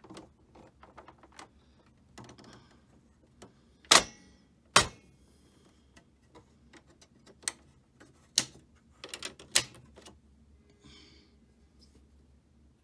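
Sharp metal clicks and knocks from an Alienware R10 desktop case as its swing-out power supply cage is swung back down and seated to close the case: two loud knocks about four and five seconds in, then several lighter clicks.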